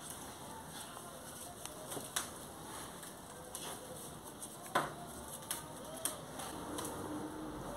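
Hands scattering loose marigold petals onto a cloth-covered table and spreading them flat: soft rustling with a few irregular light taps, the sharpest about five seconds in.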